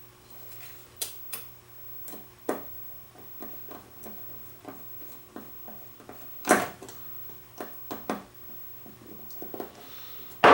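Scattered clicks and knocks of a replacement computer fan being handled and fitted into its mounting bracket, with one louder knock about six and a half seconds in.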